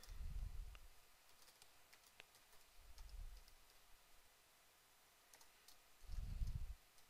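Faint computer keyboard typing: scattered single key clicks. Three dull low thumps, louder than the clicks, come at the start, about three seconds in and near the end.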